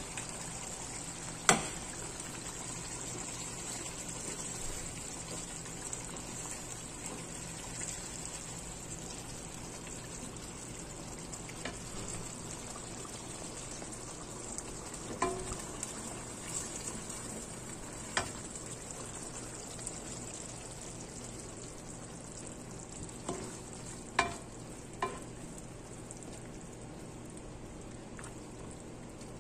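Sauce with sweet potato leaves sizzling and bubbling steadily in a stainless steel wok, stirred with a wooden spatula. The spatula knocks sharply against the pan a handful of times, loudest about a second and a half in.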